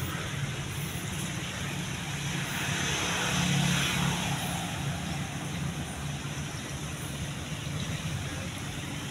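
Steady road traffic noise with a low engine hum, growing louder around three to four seconds in and then easing back.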